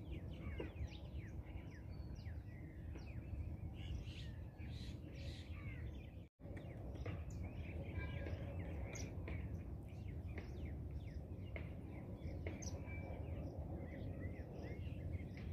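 Several small birds chirping and calling in short, quick rising and falling notes over a steady low background hum. The sound cuts out completely for a moment about six seconds in.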